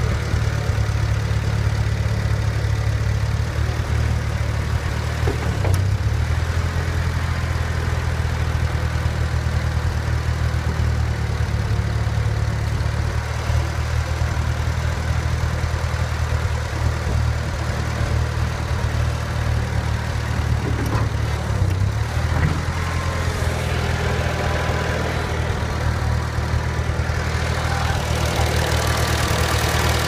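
Ford 8N tractor's four-cylinder flathead engine idling steadily at an even speed.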